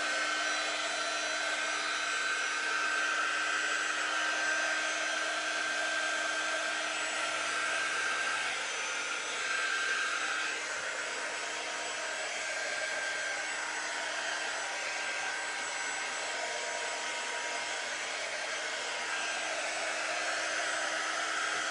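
Handheld electric craft heat tool blowing steadily, a constant whir with a steady hum, drying freshly applied chalk paste on a wooden board.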